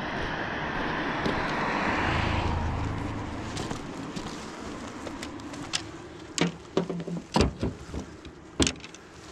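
A car passes on the road, its tyre and engine noise swelling to a peak about two seconds in and fading out by about three seconds. Later come several sharp knocks and clatters as the fishing rods and tripod rod rest are handled and set against a parked car.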